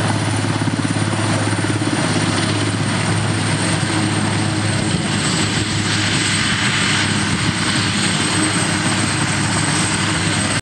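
Eurocopter AS332B Super Puma helicopter running on the ground, twin turboshaft engines and main rotor turning: a loud, steady rotor thrum with a thin high turbine whine over it.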